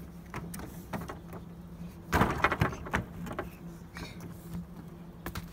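Children's feet running and jumping on a slatted wooden walkway: a string of knocks and thuds, with a louder cluster of stomps about two seconds in.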